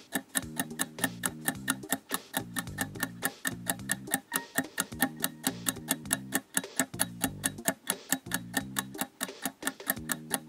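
Quiz countdown music: a steady, even clock-like ticking over a plucked low melody.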